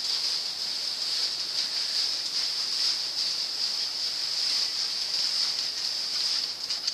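Steady high-pitched insect chorus that runs without a break, with a couple of faint knocks near the end.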